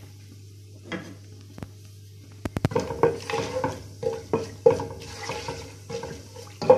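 A wooden spoon stirring and scraping whole spices around hot oil in a nonstick pot: a lone scrape at first, then steady stirring from about two and a half seconds in, with a light sizzle. A low steady hum runs underneath.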